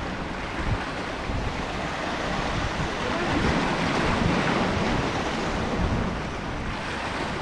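Sea waves washing and breaking against shoreline rocks, with wind on the microphone.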